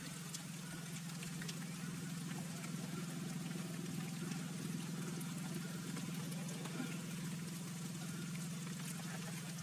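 A steady low hum under a faint even hiss, with light, scattered handling noise as green cord is worked around a leather knife sheath.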